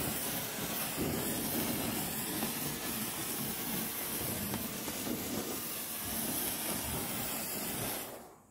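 A firework fountain hissing steadily as it sprays sparks, dying away abruptly near the end.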